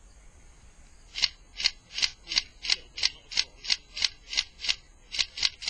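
Airsoft BB magazine being worked by hand: about fourteen short rasping strokes, roughly three a second, starting about a second in.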